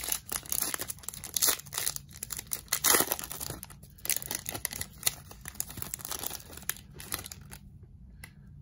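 Foil wrapper of a 2019-20 Allure hockey card pack being torn open and crinkled by hand: a dense run of crackling tears, loudest about three seconds in, tapering off near the end as the cards come out.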